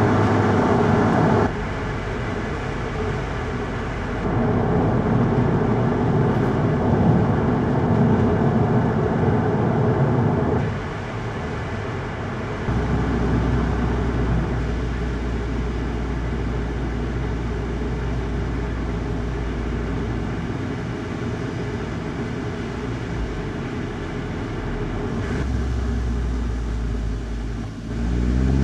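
Volkswagen Golf GTI mk7.5 driving: steady road and tyre rumble with a low engine hum. The level steps up and down a few times as the car's speed changes.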